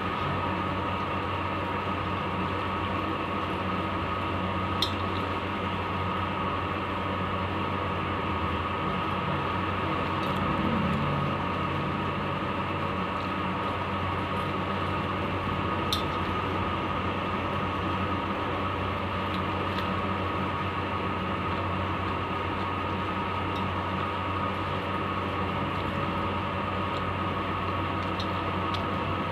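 Steady mechanical hum, even and unchanging, with two sharp clicks, one about five seconds in and one about sixteen seconds in.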